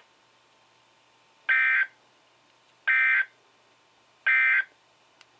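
Emergency Alert System end-of-message signal: three short, identical bursts of SAME digital data tones, each about a third of a second long and about 1.4 s apart. These bursts mark the end of the broadcast alert.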